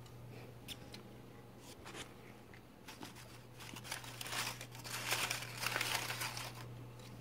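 Paper crinkling and rustling as a fox squirrel paws among the paper raffle slips in their container: a few light taps at first, then a longer stretch of crinkling about four to six and a half seconds in.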